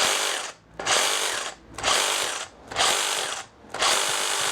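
Makita DJR360 36-volt cordless reciprocating saw running free, not cutting, in short repeated trigger pulls: about five bursts well under a second each with brief gaps, the last one held longer.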